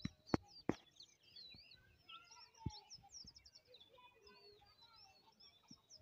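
Several small birds chirping and twittering in quick, overlapping calls, with two sharp clicks in the first second and a softer knock a couple of seconds in.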